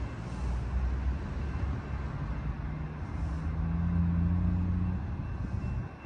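A road vehicle's engine running over low traffic noise. The hum grows louder about four seconds in and drops away shortly before the end.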